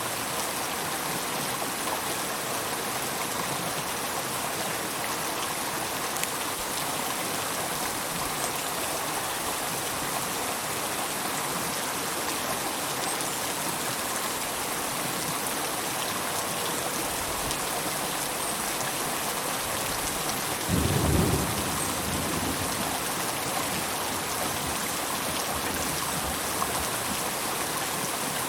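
River water rushing steadily in a constant hiss. About two-thirds of the way through comes a single low rumble lasting about a second.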